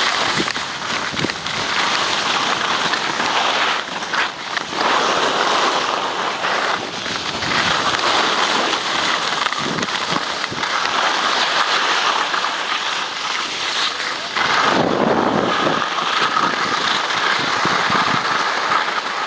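Wind rushing over the camera's microphone and skis scraping and carving on groomed snow during a fast downhill run on skis: a loud, continuous rushing noise that rises and falls with the turns.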